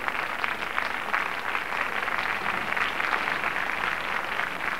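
Large crowd applauding steadily: the dense, even clapping of many hands.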